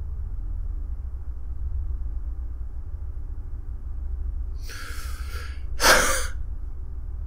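A man gives one short snort of laughter through his nose about six seconds in, just after a softer breath, over a low steady hum.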